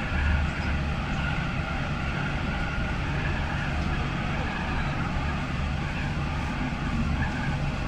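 Alstom Citadis 302 tram running at speed, heard from inside the driver's cab: a steady running noise of wheels on rail with a constant low hum.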